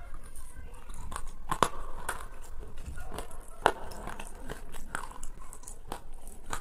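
Close-up eating with a metal spoon from a plastic tub: chewing and scraping, broken by a series of sharp clicks and crunches, the loudest a little under four seconds in.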